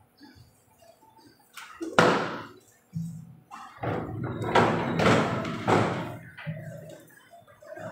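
A sharp thump about two seconds in, then a string of heavier bumps and knocks.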